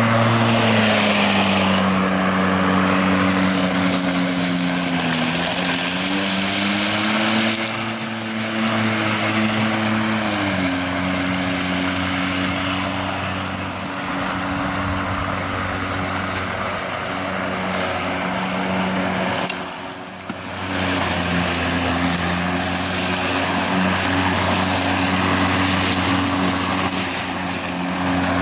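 Greenworks 40V 19-inch cordless electric lawn mower running while cutting taller grass: a steady motor-and-blade hum whose pitch sags under load and recovers several times. About two-thirds of the way through it briefly goes quieter, then comes straight back up.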